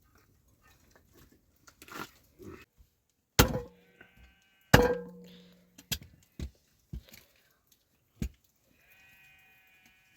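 Sheep bleating faintly a couple of times, with two loud sharp knocks that ring briefly and a few smaller clicks between them.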